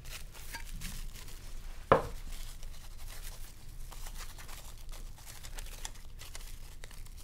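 Plastic bag crinkling and tearing as it is handled and pulled open by hand, a run of small crackles with one sharp click about two seconds in.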